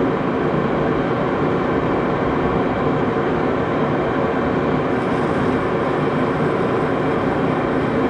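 Axelson lathe running steadily while a tool cuts a small decorative edge on a knurled brass-size set screw; a light hiss joins about five seconds in.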